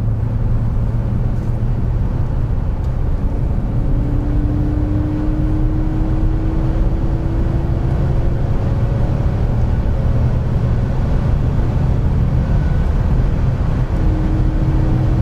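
Inside the cabin of a 1987 Audi Coupe GT cruising, its 2.3-litre five-cylinder engine gives a steady low drone mixed with tyre and road noise. A fainter tone above it climbs slowly in pitch from about four seconds in, and returns near the end.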